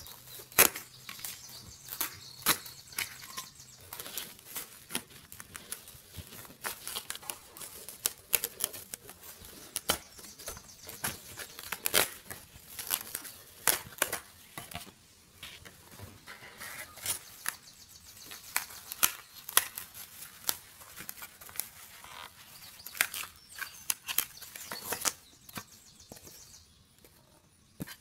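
Die-cut cardboard pieces of a 3D puzzle being punched out of their sheet: a run of irregular sharp pops and small tearing sounds of card, with rustling as the sheet is handled. It thins out in the last few seconds.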